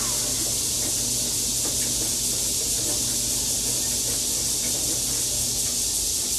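Steady high hiss of background noise with a low hum underneath, and a few faint light taps as cut soap bars are handled.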